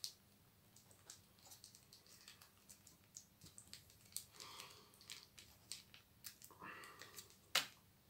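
Faint handling noises as ketchup is put on a burger's bottom bun: scattered small clicks and brief crinkling of food packaging, with a sharper click near the end.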